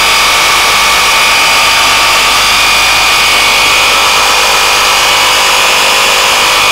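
Makita XGT 40V Gen 1 (GRJ01) cordless reciprocating saw running unloaded on speed 2. It gives a steady, loud, high-pitched squeal from the motor.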